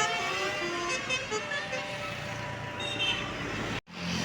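Bus telolet horn, a multi-trumpet musical air horn, playing a run of stepped notes that ends about a second in, leaving steady traffic noise. The sound cuts off suddenly shortly before the end.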